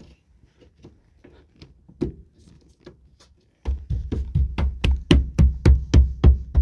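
Faint scattered clicks and taps, then about half-way through a fast, steady drum beat of background music comes in, about five strokes a second, and is the loudest thing heard.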